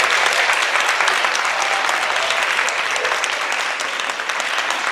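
Audience applauding, many hands clapping together, slowly tapering off.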